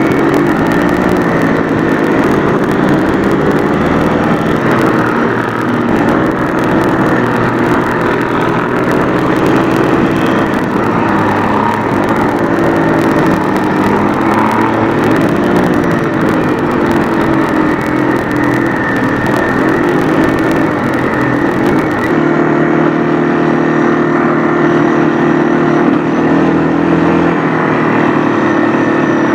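Quad bike engine running beneath the rider, its pitch rising and falling with the throttle, under a steady hiss. About 22 seconds in, the hiss drops away and the engine note becomes steadier and duller.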